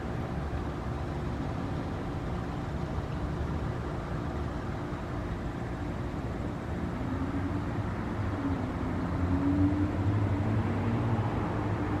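A steady low engine hum with a drone in it, getting louder from about seven seconds in as its pitch rises a little.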